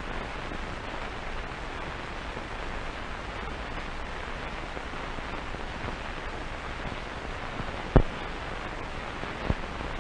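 Steady hiss with a low hum from an old film soundtrack, with a sharp click about eight seconds in and a fainter one near the end.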